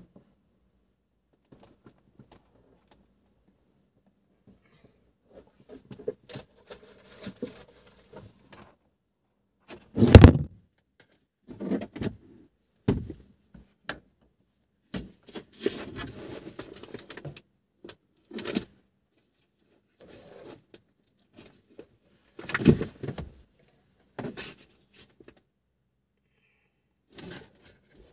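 Handling noise inside a car: scattered rustling, light clatter and thumps, starting a few seconds in after near quiet, with the loudest thump about ten seconds in and another near twenty-three seconds.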